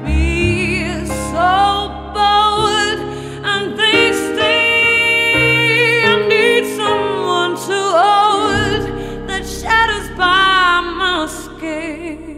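A woman singing a slow pop ballad with vibrato, holding long notes, accompanied by a digital piano. The voice drops out shortly before the end and the piano carries on more softly.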